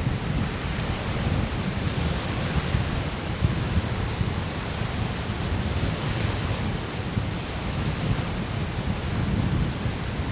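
Wind buffeting the microphone with a low, fluttering rumble, over the steady wash of lake waves breaking on the shore, swelling and easing every few seconds.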